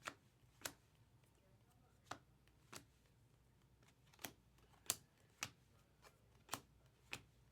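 Sharp clicks of thick Topps Chrome trading cards being handled and flipped, about ten in all, often in pairs about half a second apart.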